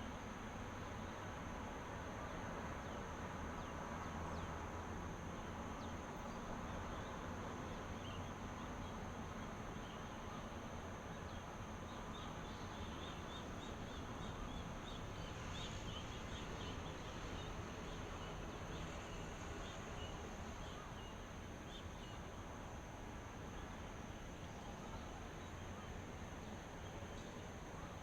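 Outdoor ambience: a steady high insect drone over an even background hiss, with brief faint chirps through the middle.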